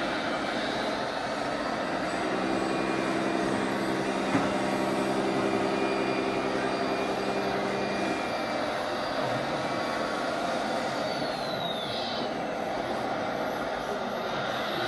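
Radio-controlled model construction vehicles at work: a steady engine-like hum for a few seconds, a single click about four seconds in, and a high electric-motor whine that glides down in pitch in the second half and swells again near the end.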